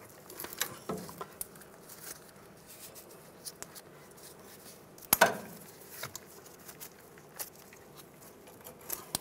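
Scattered light clicks and knocks of a bungee cord being hooked around a truck's front CV axle to hold it aside, with one louder knock about five seconds in.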